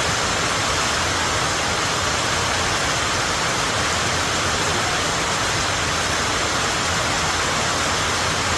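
Steady rain falling: a loud, even hiss that doesn't let up.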